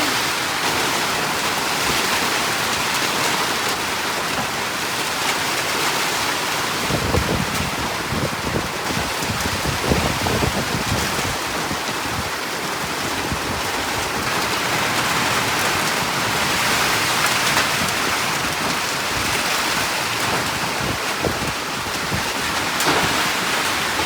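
Heavy rain falling steadily, with irregular low rumbles and knocks joining in from about seven seconds in.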